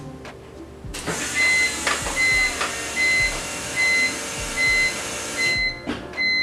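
Electric fuel pump running to prime a newly installed fuel system: a steady hiss that starts about a second in and cuts off suddenly after about four and a half seconds. Background music with a steady beeping beat plays throughout.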